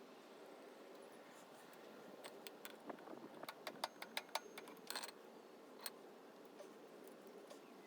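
Roller chain links and metal parts clinking in a quick run of sharp clicks, a few seconds long, as a chain is worked onto a mini bike's sprockets. There is a last click about six seconds in.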